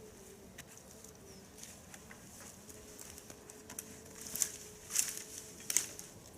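Crunching footsteps on a forest path, with a few louder, crackly crunches in the last two seconds, over a faint steady hum.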